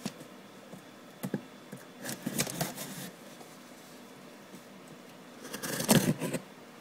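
Stainless steel Spyderco Delica folding knife slitting the packing tape and cardboard of a box, in short scratchy cuts: a burst about two seconds in and a louder one near the end.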